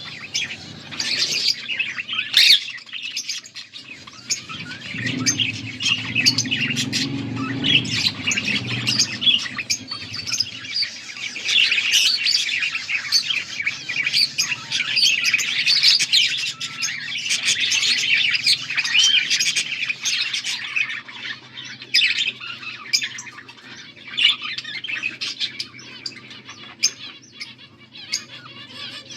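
Budgerigars chattering and chirping continuously, many short overlapping warbles and tweets.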